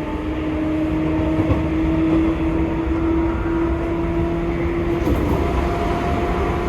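Seibu 2000 series electric train's traction motors whining under field-chopper control, a steady tone over running rumble that breaks and changes pitch about five seconds in.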